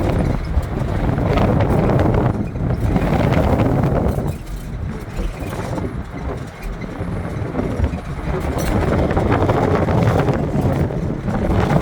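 A vehicle running, with wind noise on the microphone swelling and easing every few seconds.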